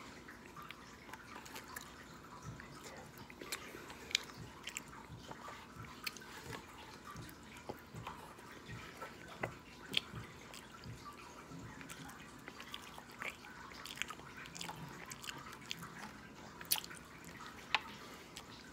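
A person chewing loaded fries with the mouth close to the microphone: irregular wet smacks and clicks, with a few sharper ones about 4, 10 and 17 seconds in.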